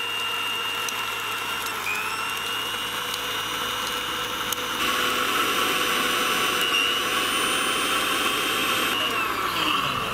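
Electric blender motor running steadily as it purées pomegranate seeds into juice, a whirring whine that gets a little louder about halfway. It spins down near the end.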